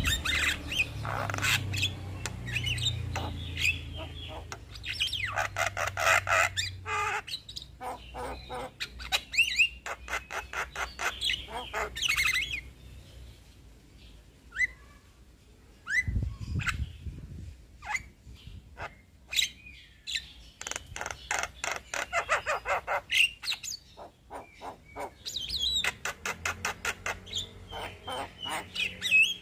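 Male Javan myna singing in bursts of rapid rolling, chattering trills, with a pause about halfway through. A dull low thump comes near the middle.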